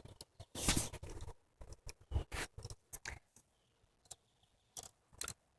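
Irregular clicking and light metallic rattling of a pair of cheap handcuffs being handled on the feet, the loudest click about a second in.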